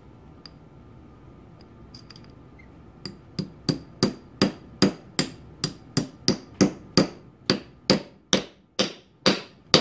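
Hammer tapping a steel pin punch to drive a taper pin through the shaft of a Linotype knife block: after a few faint clicks, about eighteen metal-on-metal taps, roughly three a second, starting about three seconds in.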